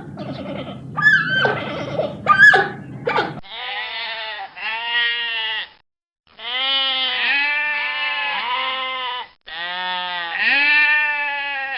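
Short high yelping animal calls in the first three seconds or so. Then four long, wavering bleats with short gaps between them, the third the longest.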